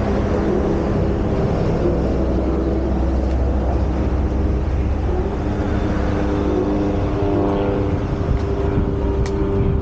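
Motor vehicle engine running close by, a steady low drone whose pitch shifts a little about halfway through, with a sharp click near the end.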